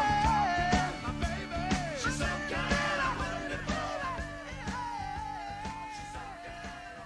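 Background song with a singing voice over a steady drum beat, fading out gradually.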